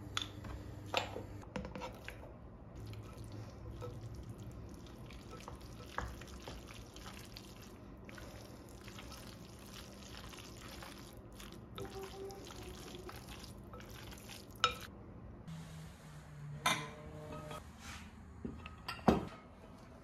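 A spoon stirring a vegetable and pasta salad in a glass bowl, with several sharp clinks of the spoon and other utensils against the glass, the loudest near the end.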